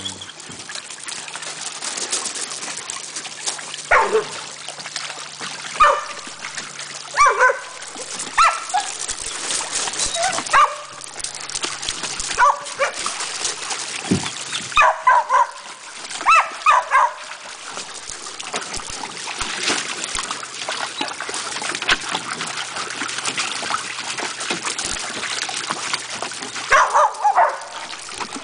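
Dogs wading and splashing in a plastic kiddie pool, the water hissing and sloshing steadily, with short high barks and whines breaking in every second or two, some dropping in pitch, bunched in quick runs around the middle and again near the end.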